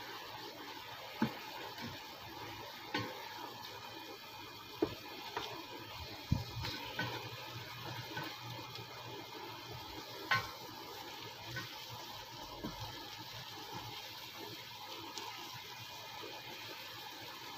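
Fried bangus (milkfish) steaks simmering in sauce reducing in a pan: a low, steady sizzle with scattered crackles. A few sharp clicks of a utensil against the pan are spread through it.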